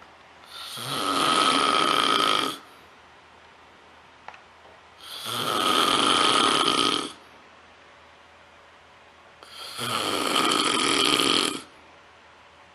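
A person snoring: three long, noisy snores of about two seconds each, roughly every four and a half seconds, each carrying a steady whistling note.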